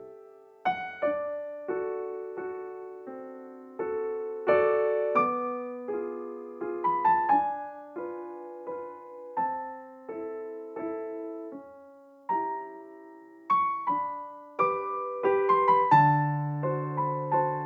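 Background music: a slow, gentle piano piece of struck notes and chords, each ringing out and fading.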